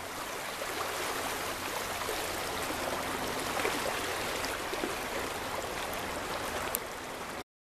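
Shallow river water rushing steadily over riffles. The sound cuts off suddenly near the end.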